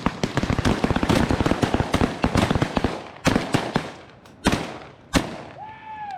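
A volley of shotgun fire from many hunters shooting at once, a rapid overlapping barrage for about three seconds, then a few single shots spaced out. A single honk near the end.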